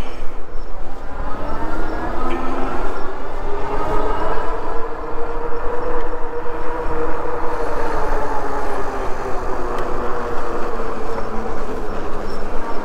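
Himiway Zebra fat-tire e-bike under way: a pitched hum with several overtones from its fat tires and 750 W rear hub motor, rising slowly in pitch over the first few seconds and then falling again as the speed changes. A steady low rumble runs beneath it.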